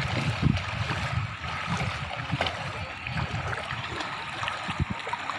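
Floodwater flowing and sloshing, with irregular low splashes as someone wades through it.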